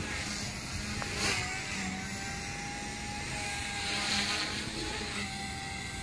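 Thin, steady whine of a small electric RC helicopter, the Align T-Rex 150, hovering and flying at a distance, under wind noise on the microphone.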